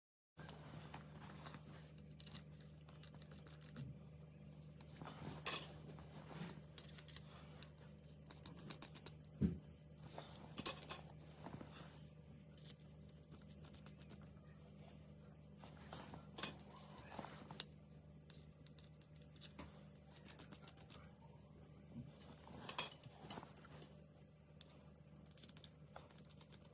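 Scattered light clicks and small metallic clinks from arrows and screw-in metal broadheads being handled, a few sharper knocks among them, over a steady low hum.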